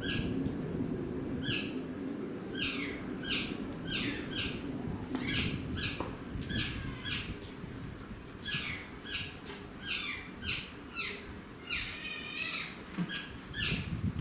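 Asian small-clawed otter giving repeated high-pitched chirps, about two a second in short runs, each call falling in pitch.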